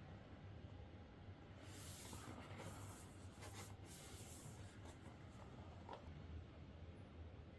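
Faint rustling and scraping of packaging being handled, with a few light taps, over a low background hum.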